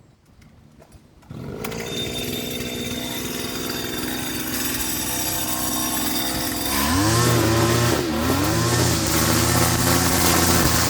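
A lawn mower's small petrol engine starts suddenly and runs steadily. About seven seconds in it gets louder, and its pitch wavers, dipping and rising a few times.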